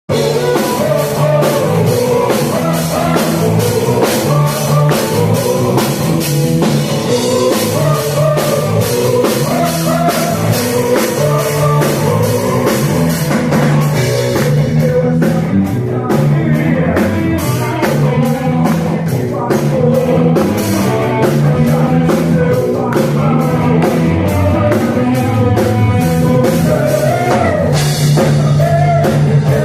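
Rock band playing: a drum kit with steady, driving cymbal strikes over electric guitar and bass. The cymbals ease off for a few seconds around the middle, then come back in.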